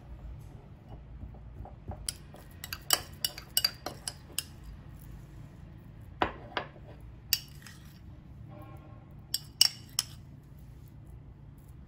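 Metal spoon clinking and scraping against a glass jar and a ceramic bowl while scooping out a chilled, hardened milk-butter spread. The sharp clinks come in three loose groups: about two seconds in, around the middle, and near the end.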